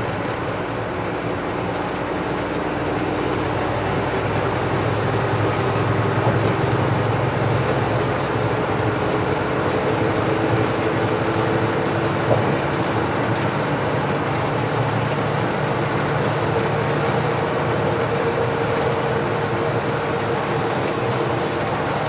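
Mack CH600 truck at highway speed: the diesel engine's steady drone mixed with tyre and road noise, with one brief knock about twelve seconds in.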